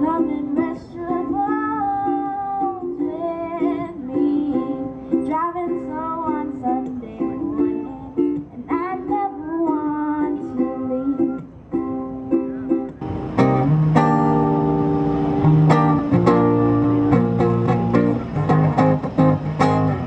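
A woman singing over her own strummed ukulele. About thirteen seconds in it cuts abruptly to a louder acoustic guitar strummed alone, with strong low notes.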